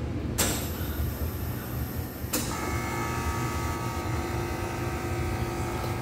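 Soft-serve ice cream machine running, a steady low motor hum. About two and a half seconds in, a steady whine of several held tones sets in and carries on.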